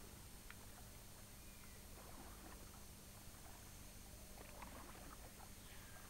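Near silence: a steady hiss and low hum, with a few faint short sounds.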